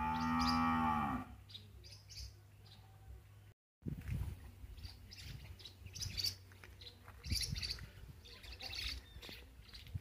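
A cow moos once near the start, a single call of just over a second that rises and falls in pitch. Small birds chirp intermittently after it.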